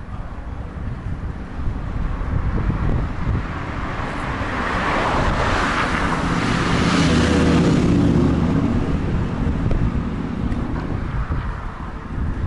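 Wind rumbling on the microphone while cycling along a street, with a car passing close by: its tyre and engine noise swells from about four seconds in, peaks near the middle, then fades.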